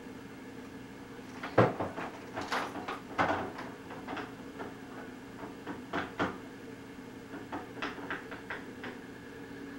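Scattered light knocks and clicks, a dozen or so, the loudest about one and a half seconds in, over a steady hum.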